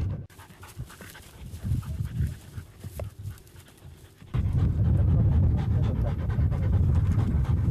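Podenco Canario hunting dogs panting while moving through dry scrub and grass, with scattered rustles and ticks. About four seconds in, a loud low rumble sets in suddenly.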